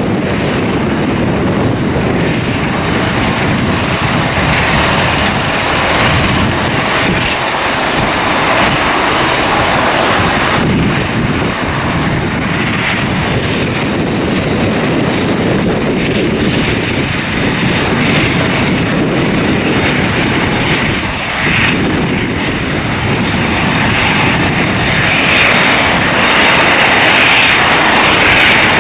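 Airliner jet engine noise, a steady roar that swells and eases, mixed with wind buffeting the microphone.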